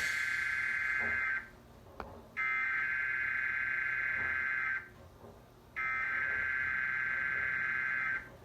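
Emergency Alert System SAME header: three bursts of screechy digital data tones, each about two and a half seconds long with a second's gap between them, encoding the start of a required monthly test alert relayed over TV broadcast audio.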